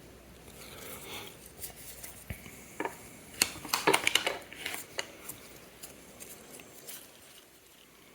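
Light metal clicks and taps of small tools handling a mechanical watch movement, scattered and bunched together about three and a half to four seconds in.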